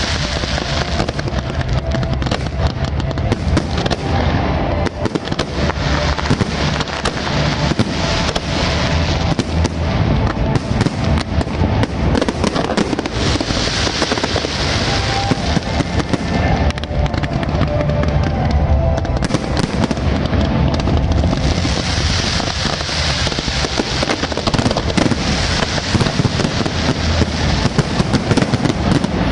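Fireworks display going off in a continuous barrage of launches and bangs with dense crackling; the crackle swells several times.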